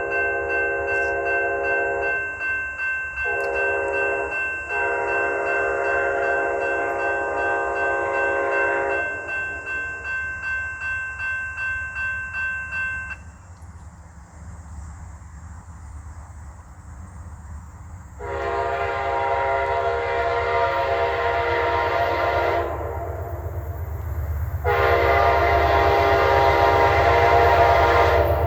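Amtrak passenger train's horn sounding a series of long blasts, a horn show, with short breaks between them and a longer pause in the middle. A bell rings steadily beneath the first half, and the rumble of the approaching train grows near the end.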